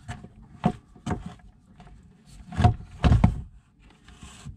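A few short sharp knocks and clunks as a Shurflo RV water pump is handled during its replacement, the loudest about two and a half and three seconds in.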